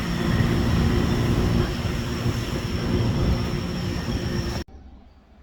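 Steady background rumble and hiss with a faint constant hum, cut off abruptly about four and a half seconds in, leaving only a faint hiss.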